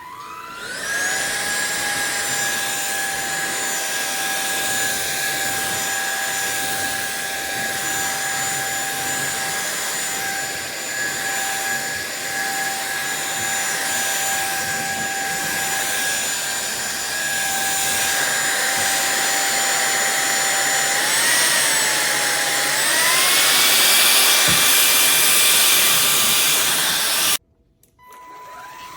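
Cordless stick vacuum cleaner motor spinning up to a steady high whine over a rush of air. About 21 seconds in the pitch wavers and then climbs, and it runs louder. Near the end it switches off abruptly, then starts spinning up again.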